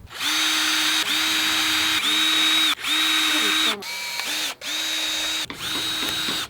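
Power drill run in about seven short bursts, each spinning up to a steady whine and stopping.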